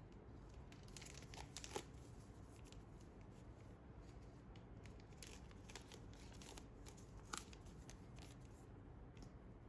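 Faint rustling and tearing of packaging handled by hand, with scattered small clicks and two sharper clicks, one about two seconds in and one near the end.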